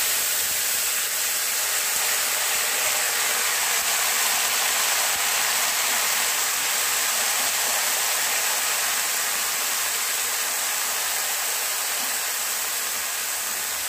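Chopped fresh water spinach (kalmi shak) sizzling hard in hot oil in a pan: a loud, steady hiss as the greens hit the oil.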